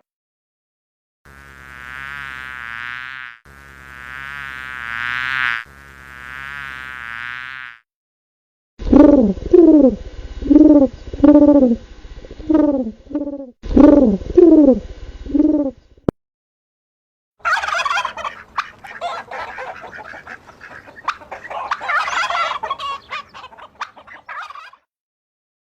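A run of different animal calls played one after another, with short pauses between them. First come three long pitched calls, then about a dozen loud repeated calls that each fall in pitch, then a scratchy, clicking chatter.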